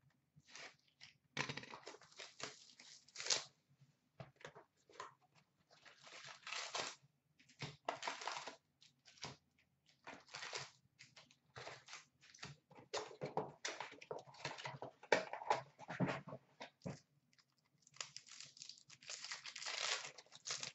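Hockey card hobby box and its wrapped card packs being torn open and handled: a run of crinkling, rustling and ripping noises, with longer tears near the start and near the end.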